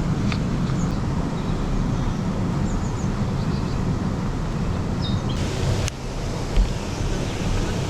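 Steady rushing noise of moving water at a canal lock, with wind buffeting the microphone. A few faint bird chirps sound over it.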